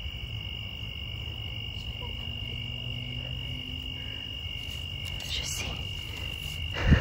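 Night insects keeping up a steady high-pitched trill, with one short, dull thump near the end.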